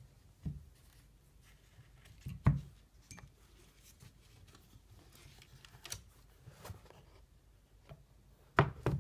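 Scattered light clicks and knocks from handling a watchmaker's Jacot pivot lathe and its fitted case: a sharp knock about two and a half seconds in and a quick double knock near the end.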